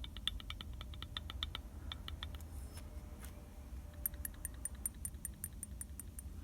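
Used GMB water pump for a Lada Vesta being turned and rocked by hand, with a rapid run of light knocks from inside at about eight a second. The run comes first for a second and a half, then again from about four to six seconds in. The knock is free play inside the pump, which the seller says a new GMB pump has too; the owner is unsure whether it is normal.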